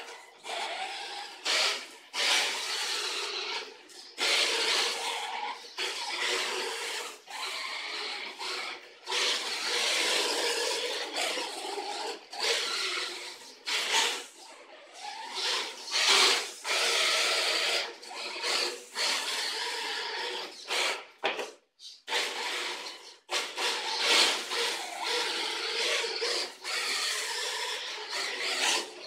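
Radio-controlled Kyosho drift car, an old nitro model converted to a brushless electric motor, driving and sliding on a tiled floor. Bursts of motor and drivetrain whirr and tyre scrubbing start and stop every second or few as it accelerates and slides.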